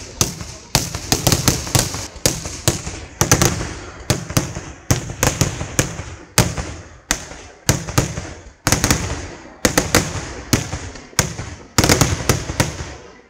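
Kerala temple fireworks (vedikkettu) barrage: aerial shells bursting in rapid succession, loud sharp bangs several a second in uneven clusters, each trailing off into an echo.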